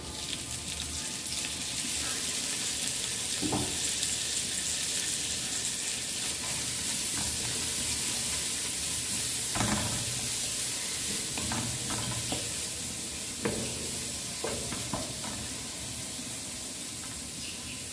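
Mint leaves sizzling as they fry in hot oil in a pan, with a steady hiss. A spatula stirs them, scraping and tapping against the pan about eight times.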